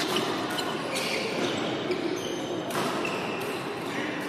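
Badminton play in a large hall: several sharp racket hits on the shuttlecock and short high squeaks of court shoes on the wooden floor, over the echoing din of games on other courts.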